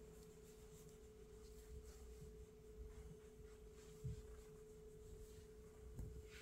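Near silence with a faint, steady hum at one pitch, and a soft brief sound about four seconds in.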